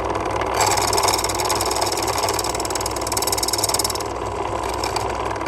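Key-cutting machine's motor running steadily, with its cutter grinding into the bit of a lever-lock key blank from about half a second in until about four seconds in, taking the third lever cut deeper.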